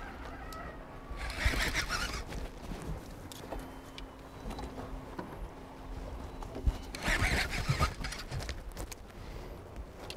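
Water splashing in two short bursts, about a second in and again about seven seconds in, as a hooked payara (cachorra) thrashes at the surface.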